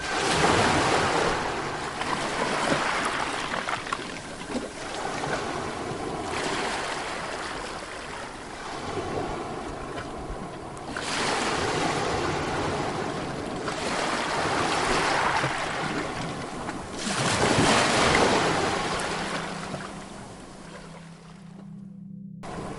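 Ocean surf: waves breaking and washing up the beach, swelling and falling away every few seconds, loudest near the end before a brief dropout.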